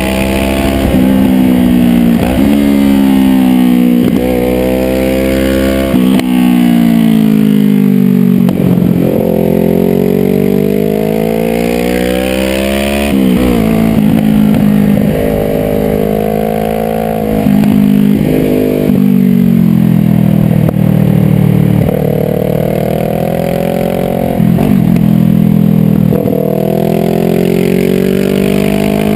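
Sport motorcycle engine under way, heard from the rider's own bike, its pitch climbing under throttle and falling back again and again, with sudden drops at shifts or on closing the throttle for the bends. Wind and road noise run under it.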